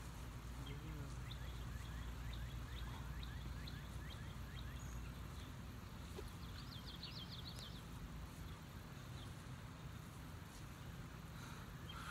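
Outdoor ambience: a steady low rumble with small birds chirping faintly, including a quick trill about seven seconds in.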